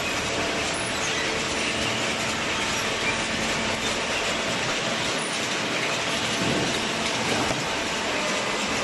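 Fully automatic hydraulic waste paper baler running: steady machine noise with a faint low hum.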